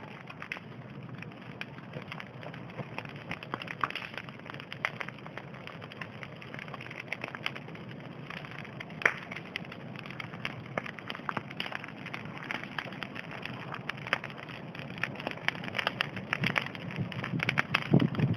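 Bonfire crackling, with many small sharp pops at irregular times. One louder pop comes about nine seconds in, and the crackling grows busier near the end.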